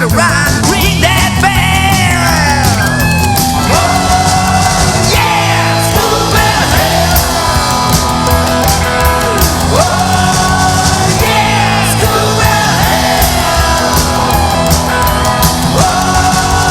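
Rock song recording played by a full band: a steady bass line underneath, a lead part that bends up and down in pitch every few seconds, and cymbals on top.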